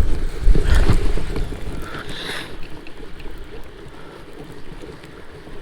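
Wind buffeting the microphone over open water, loudest in the first second and a half and then easing to a steady hiss, with a brief rustling noise about two seconds in.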